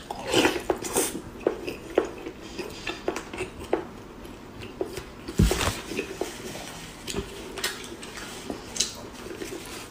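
Eating sounds: short, irregular clicks and clinks of chewing and utensils, with one louder knock about five and a half seconds in.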